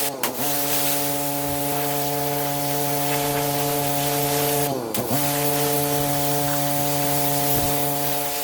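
Pressure washer running with its spray hissing over a steady machine hum. The spray cuts briefly twice, about a fifth of a second in and about five seconds in, and each time the hum dips in pitch and recovers.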